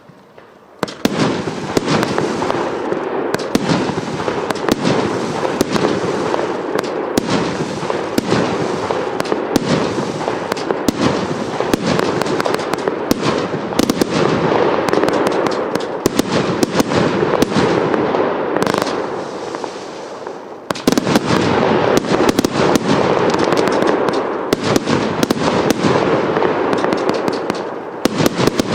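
Evolution Fireworks 'Nemesis' firework firing a dense, continuous stream of rapid reports and crackles. Starts about a second in, thins briefly about two-thirds of the way through, then picks up again just as densely.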